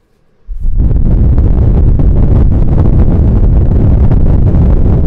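Heavy wind buffeting on the bare, unscreened microphones of a Zoom H4 recorder held in a box fan's airflow: a loud, deep rumble that starts suddenly about half a second in and then holds steady.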